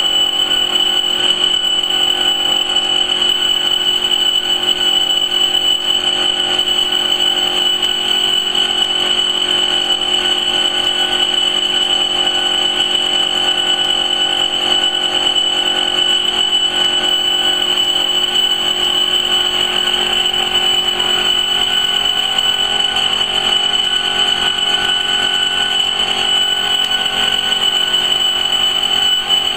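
Two-head fabric laser cutting machine running as it cuts cloth: a steady mechanical whine with a strong high-pitched tone held throughout.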